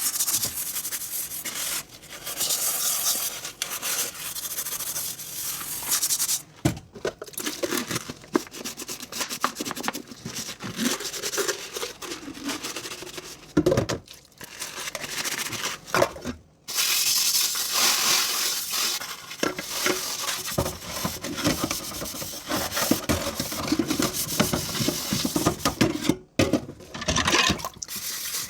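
Dishes being scrubbed by hand, a scratchy rubbing that runs on in long stretches and stops briefly three times, with a few sharp knocks of dishware in between.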